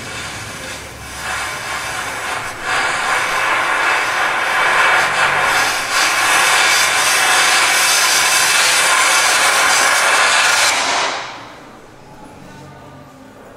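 Dense electronic noise from a Doepfer A-100 analog modular synthesizer, a hissing wash with faint steady tones that swells over the first few seconds, holds loud, then drops away sharply about eleven seconds in, leaving a quiet low hum.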